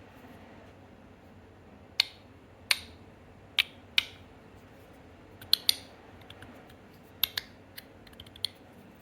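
Stainless steel LINO EDC YULI magnetic slider fidget being slid and snapping shut, giving sharp metallic clicks at irregular intervals, about ten in all, starting about two seconds in. The clicks are not too loud.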